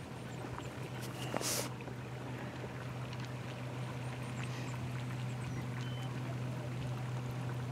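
Outboard motor of a small boat running steadily, a low drone that grows slightly louder as the boat comes closer. A brief burst of hiss about a second and a half in.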